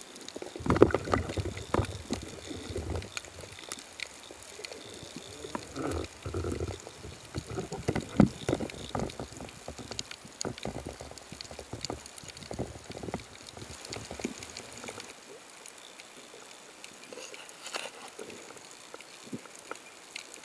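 Water sloshing and irregular knocks and splashes picked up by an underwater camera as a spearfisher moves at the surface handling a speared fish. After about fifteen seconds it turns quieter, leaving a faint underwater hiss with scattered small clicks.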